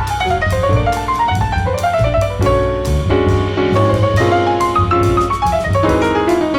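Instrumental jazz: a piano playing fast descending and ascending runs over bass and drums.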